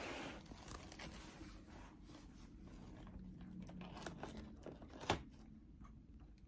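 A cat biting and nibbling at plastic packaging: faint crinkling and small clicks, with one sharper click about five seconds in.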